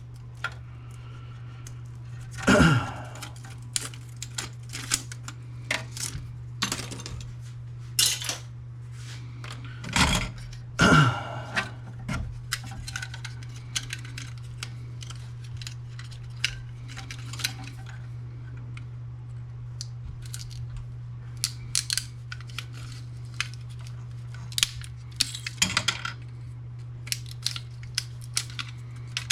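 Hard plastic and small metal printer parts clattering, clicking and knocking as a printer is taken apart by hand, over a steady low hum. There are louder clatters about two and a half seconds in and around ten to eleven seconds in, then a run of lighter irregular clicks.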